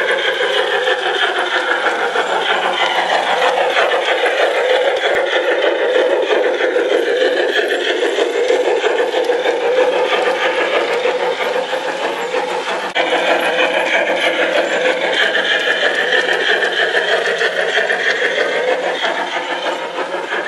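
Garden-scale model train running along its track: a steady mechanical whirring and rattling.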